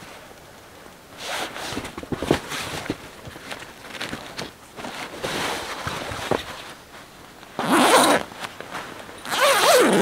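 A zipper pulled in two loud strokes near the end, the second with a sliding rise and fall in pitch, after softer rustling of nylon tent fabric and clothing as the camper crawls into the tent.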